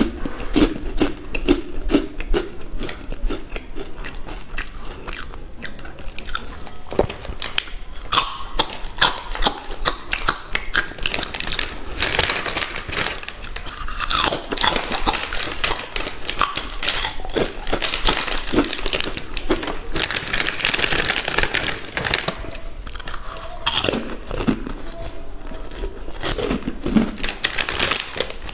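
Close-miked crunching and chewing of crisp packaged snack chips: many sharp crunches in quick succession, growing denser and nearly continuous in the middle of the stretch.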